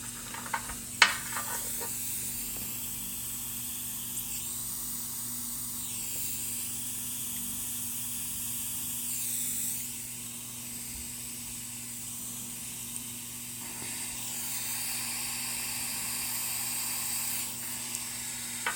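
Soldering iron melting the solder on a mouse microswitch's pins: a faint high sizzling hiss that comes and goes as the tip touches the joints, over a low steady hum. There is one sharp click about a second in.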